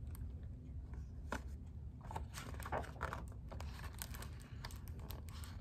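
Paper rustling and crinkling with many small clicks and taps: the pages of a picture book being handled and turned.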